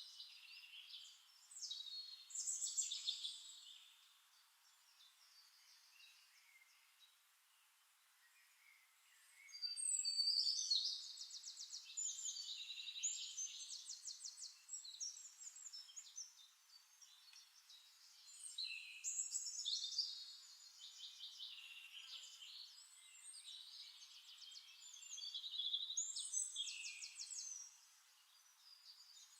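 A songbird singing high, trilled phrases of rapidly repeated notes, several phrases with short pauses between them.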